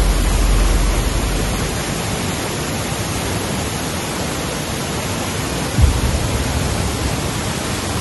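Rushing water of a stream waterfall, a loud, steady hiss, with a brief low bump about six seconds in.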